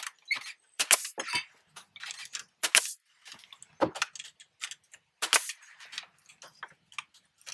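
Pneumatic stapler driving staples into the sides of a wooden post cap: a handful of sharp shots at irregular intervals, the loudest about a second in.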